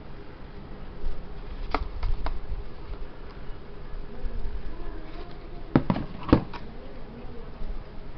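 A steady low buzz with a few sharp clicks and knocks, twice near two seconds in and twice more around six seconds.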